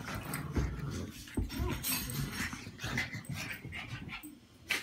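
Small dogs play-fighting: dog noises and scuffling in irregular bursts, with a short loud burst near the end.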